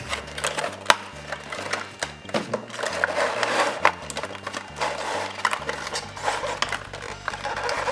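An action figure's plastic insert being slid out of its cardboard box by hand, with rubbing, scraping and irregular sharp clicks of cardboard and plastic. Quiet background music with a low bass line runs underneath.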